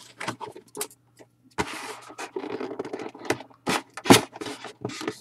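Scissors scraping and snipping at the seal of a cardboard box, with the box rubbing and knocking on a wooden table: irregular scratching broken by several sharp clicks, the loudest about four seconds in. The scissors are struggling to cut the box open.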